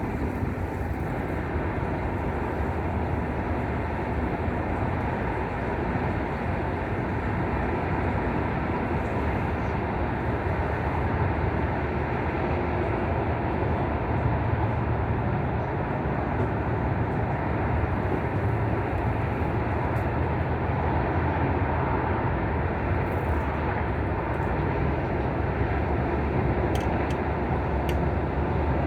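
Wind blowing across the microphone: a steady low rumble with a rushing hiss above it.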